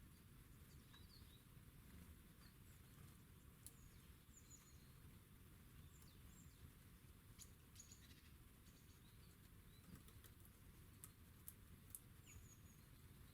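Faint, scattered short high chirps of small songbirds, with several sharp ticks in the second half.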